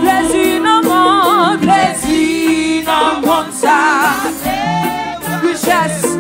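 A woman singing a worship song into a microphone, holding notes with a wide, wavering vibrato.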